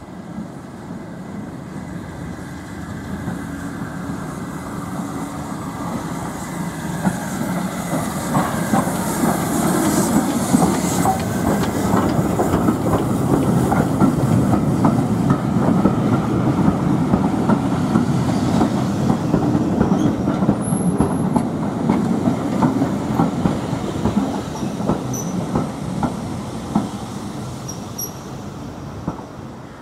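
A train of vintage railway carriages rolling past at low speed, its wheels clicking over the rail joints. The sound builds over the first few seconds, holds, and then fades as the train moves away near the end.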